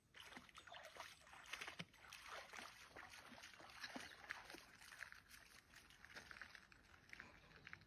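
Quiet, irregular splashing and sloshing of lake water, as a paddle and paddleboard move through it.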